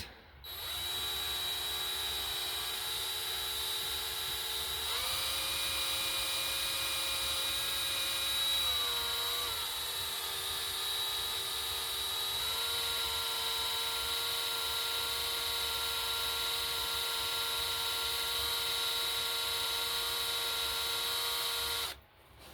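Electric drill running a reverse (left-hand) drill bit into a bolt broken off in an engine block, a steady motor whine. Its pitch steps up about five seconds in, drops back a few seconds later, rises a little again, and the drill stops suddenly near the end.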